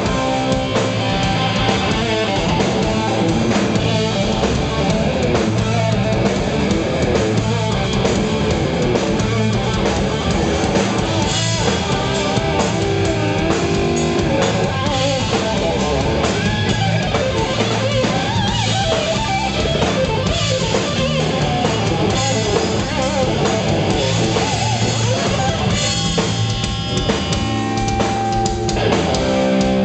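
Live hard rock band playing loud: distorted electric guitars over a drum kit.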